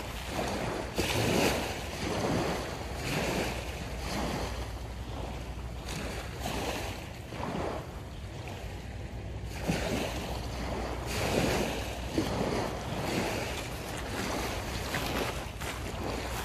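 Small waves washing on the shore, mixed with wind on the microphone, swelling and easing every second or two, with a few sharp clicks.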